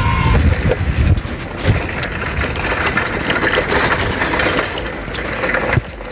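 A bicycle ridden over a rough dirt track: wind rumbles on the microphone, with steady crunching from the tyres and scattered rattles and clicks from the frame.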